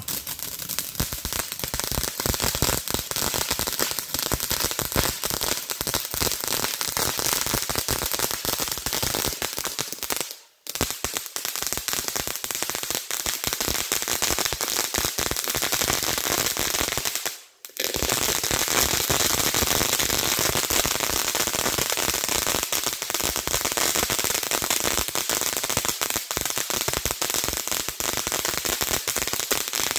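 Top Gun 'Popcorn Snowballs' firework fountain spraying sparks with a dense, continuous crackle and hiss. The sound drops out briefly twice, about a third of the way through and again just past halfway.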